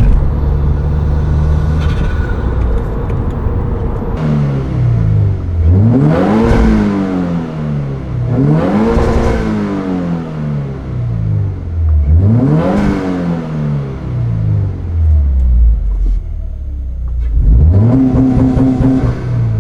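Turbocharged Subaru WRX flat-four engine with an Invidia Q300 cat-back exhaust, idling and then free-revved three times, each rev climbing and falling back. Near the end it is held briefly at a raised rpm and dropped back.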